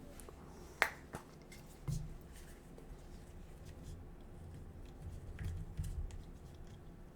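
Handling noise from small in-ear monitors picked up and turned in the hands: scattered light clicks and taps, with one sharp click about a second in and a few low thumps.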